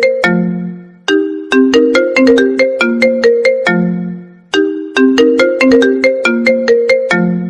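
Smartphone ringtone playing: a short melody of struck, quickly decaying notes, its phrase starting over about halfway through.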